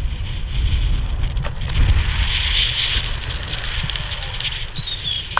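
Wind rushing over the camera microphone during a parachute canopy descent: a steady low buffeting rumble with a hiss above it, and a sharp click near the end.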